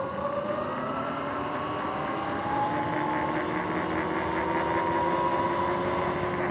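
Sur-Ron X electric dirt bike's motor and new drive chain whining under way, the whine rising in pitch over the first few seconds as it speeds up, then holding steady.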